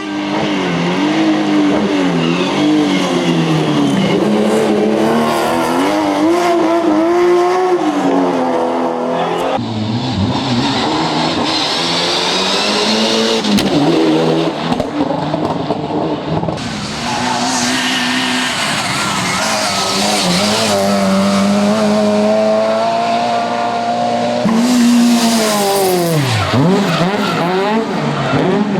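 Rally cars' engines revving hard and changing gear on a competitive stage, with the sound jumping between cars several times. Tyres squeal in places, and near the end one car passes close with a sweep in pitch.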